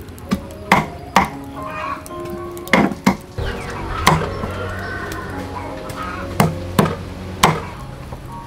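Knife chopping on a board: about eight sharp, irregularly spaced knocks over soft instrumental background music.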